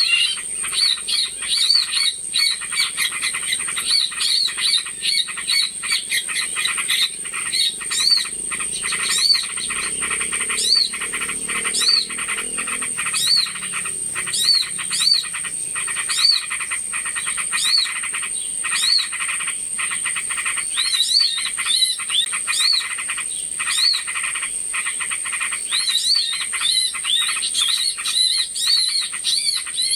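Bird-lure recording of many small birds calling at once: dense chattering, with a short rising-and-falling whistled note repeated about once or twice a second, over a steady high-pitched whine.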